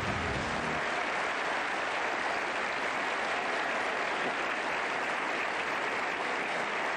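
Audience applauding steadily, with music ending about a second in.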